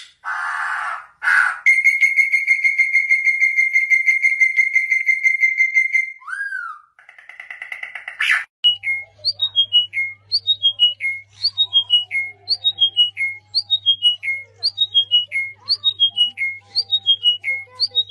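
Birds singing in a series of separate recordings: first a long, fast, even trill, then a short falling phrase of about four whistled notes repeated over and over, roughly once a second.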